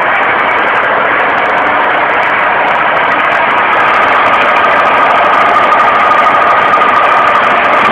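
Small engine of a custom racing lawn mower running steadily, getting a little louder about halfway through.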